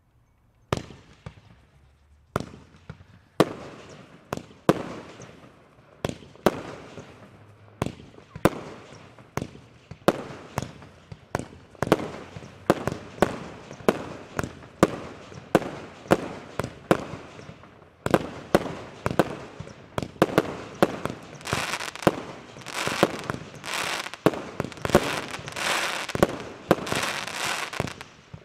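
A Mega Blitz 36-shot firework cake firing in sequence: a sharp shot every half second to second, starting about a second in, with crackling between the shots. Over the last seven seconds the crackling grows denser and louder.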